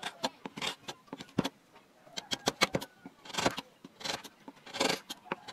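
A U-gouge pushed by hand through wood, carving a relief: a run of sharp clicks as the edge bites and chips snap off, with two longer scraping cuts, one about three and a half seconds in and one near the end.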